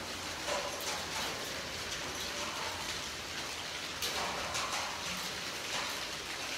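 Heavy rain mixed with hail pelting down: a steady hiss of rain with frequent sharp taps of hailstones striking the ground.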